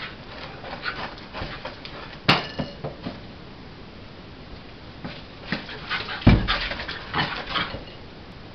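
Blue Heeler–Border Collie mix puppy playing with a giant tennis ball on a tile floor: the puppy's own dog noises over scattered clicks and scuffs, with a sharp knock a little after two seconds and a heavy thump a little after six seconds, the loudest sound.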